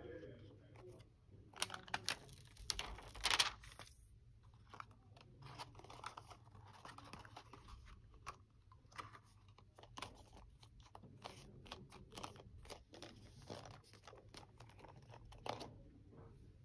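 Hands handling a cardboard blister card and clear plastic dome while packing a pacifier: irregular rustling and crinkling of card and plastic with scattered clicks. The handling is densest and loudest a couple of seconds in, then turns sparser and quieter.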